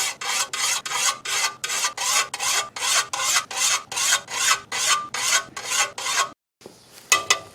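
A hand file rasping back and forth across the steel blade of a bush axe to sharpen it, in even strokes about three a second. The strokes stop about six seconds in, followed by a brief metallic clink.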